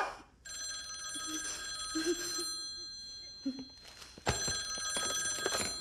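A telephone ringing twice, each ring about two seconds long with a short pause between them.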